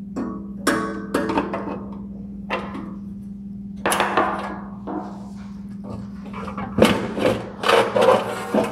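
Metal clinks and knocks from a ship's mast floodlight being taken apart: a screwdriver and screws working on the sheet-metal housing and its gear tray being shifted. There are several sharp strikes, each with a short ring, coming in clusters near the start, about four seconds in and near the end, over a steady hum.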